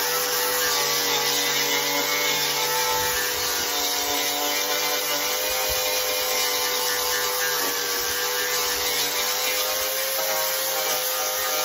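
Power grinder running steadily while grinding back a fiberglass bumper around its cracks, opening up the original resin so new fiberglass will bind. A steady whine with a dense gritty hiss over it, its pitch wavering slightly as the load changes.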